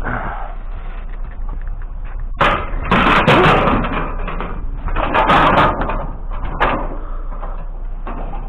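Clattering and banging of curbside junk being handled and loaded, with two loud bouts of rattling about two and a half and five seconds in and a sharp knock shortly after.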